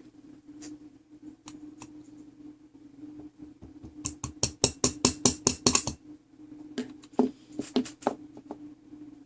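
Rapid light taps on clock movement parts, about a dozen in two seconds around the middle, with scattered clicks before and after: a part being tapped down into its seat.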